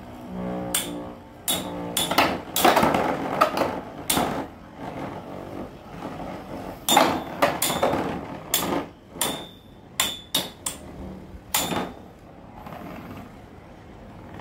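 Infinity Nado metal spinning tops clashing in a battle arena: an irregular run of sharp clacks and knocks, some with a brief metallic ring, thickest in the first four seconds and again from about seven to twelve seconds, then thinning out near the end.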